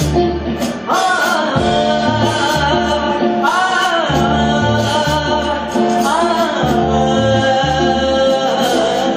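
Live band music: a male singer holds long sung notes with rising and falling bends, over electric guitar and a steady bass line.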